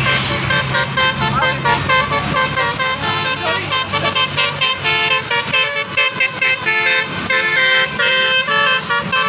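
Basuri telolet musical horn on a bus playing a fast melody of quickly changing tones, over the low steady hum of the bus engine, which fades about halfway through.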